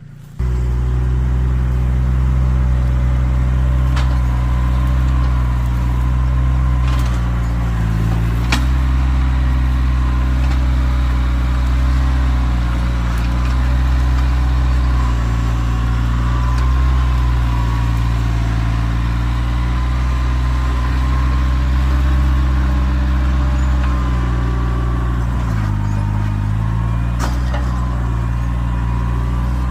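Kioti tractor's diesel engine running steadily. Its pitch dips briefly about eight seconds in and again near the end, and there are a few faint knocks.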